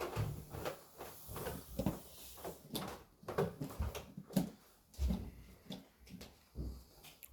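Irregular small knocks, clicks and rustling of objects being handled, a few low thuds among them.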